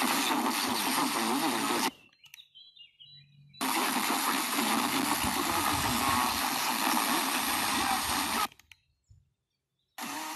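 FM radio receiver hiss from a weak or empty frequency during a band scan. It cuts off abruptly twice, about two seconds in and again near the end, as the receiver mutes while tuning to the next frequency, and another station's audio comes in at the very end.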